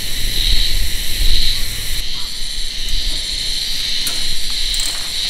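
Loud chorus of many cicadas: a shrill, steady drone that swells and eases about once a second.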